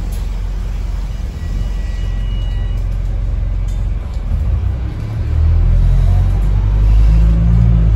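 Wright StreetDeck double-decker bus heard from inside the saloon: a steady low rumble from the running bus that gets much louder about five and a half seconds in.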